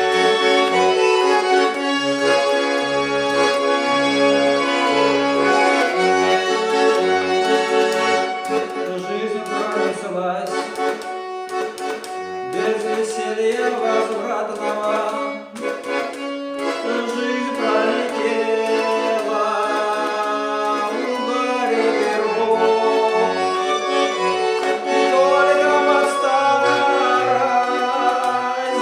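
Accordion playing a melody of held, reedy notes over short, repeated bass notes.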